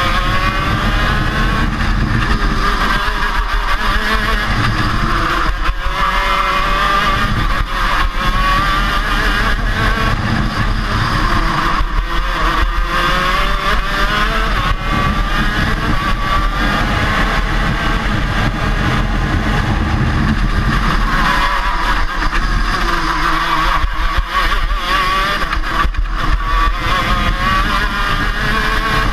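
KZ-class 125cc two-stroke gearbox kart engine at racing speed, its note climbing again and again and dropping back between climbs as the kart accelerates and changes gear round the lap.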